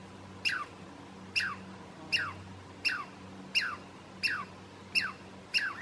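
Douglas squirrel giving its alarm call: a steady string of eight short chirps, each sliding sharply down in pitch, a little more than one a second.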